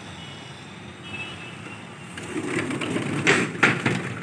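Steady city traffic noise coming in through an open window, then from about two seconds in a sliding window is pushed along its track, scraping, with several sharp clacks and rattles.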